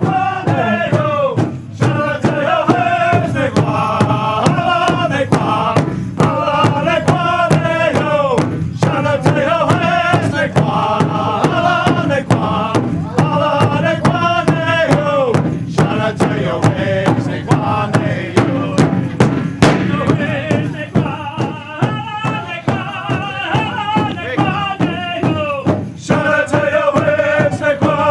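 Powwow singers chanting together over a drum struck in a steady beat.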